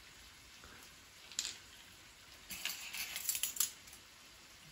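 Soft sounds of handling a soy sauce bottle and measuring spoon: a single sharp click of the bottle's plastic cap about a second and a half in, then a short cluster of light clicks and metallic clinks.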